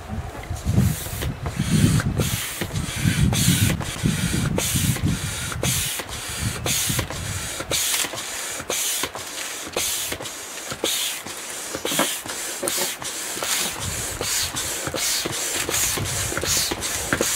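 Manual air pump inflating a chamber of a K2 inflatable kayak: a rhythmic hiss of air with each stroke, about two strokes a second. Low rumbling runs under it for the first five seconds or so.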